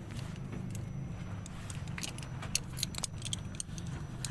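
Small metal hand tools clinking and ticking against metal fittings, scattered sharp clicks that come thicker in the second half, over a steady low hum.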